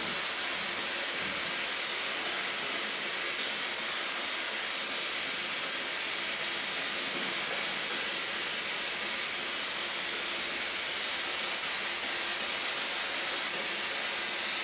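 Steady hiss of radio static from an SB-7 spirit box sweeping the radio band, with no voice coming through.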